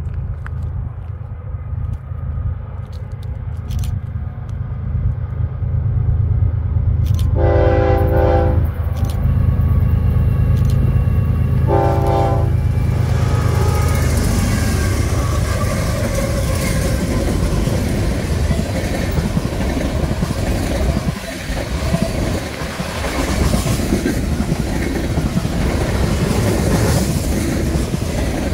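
BNSF diesel freight locomotives approach and pass at about 50 mph with their engines rumbling. The train horn sounds a long blast about seven seconds in and a shorter one around twelve seconds. From about halfway through, empty tank cars roll past with loud, steady wheel-on-rail noise and clatter.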